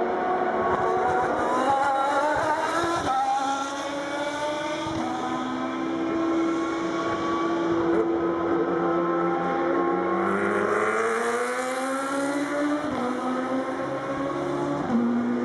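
Endurance race cars accelerating out of a slow corner one after another. Their engine notes climb in pitch as they pull away and drop at an upshift, while other cars' engines run on underneath.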